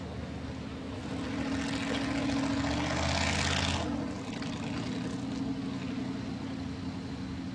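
An engine running steadily, growing louder about a second in and passing by, its pitch dropping about four seconds in.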